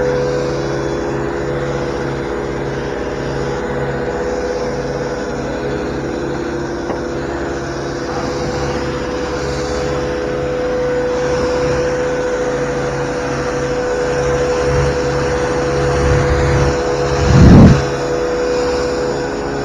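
Electric pressure washer and its feed water pump running, a steady machine hum over a fluttering low drone. A loud low thump comes near the end.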